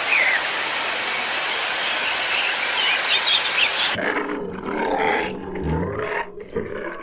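Steady outdoor noise with small birds chirping, then an abrupt cut to a low animal call lasting about a second, near the end.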